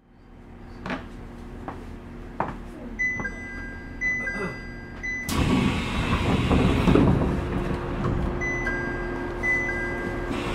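A two-note electronic chime, a higher note then a lower one, repeating about once a second, heard from inside a train standing at a station. A few knocks come before it, and about halfway through a louder, steady rumbling noise sets in under it.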